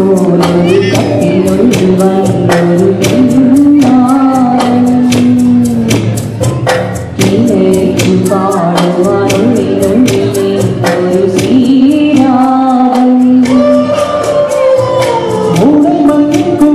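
A woman and a man singing a Malayalam film-song duet into microphones over instrumental accompaniment with a steady beat; the woman's voice leads, and the man joins in near the end.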